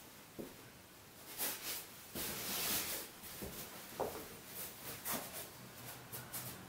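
Feet stepping and scuffing on foam floor mats: a few soft, hissy swishes, the longest and loudest about two to three seconds in.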